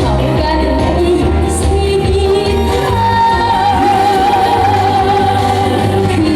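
Korean trot song performed live: a sung melody over an amplified instrumental backing with a steady bass beat, with a long, wavering held note from about halfway through.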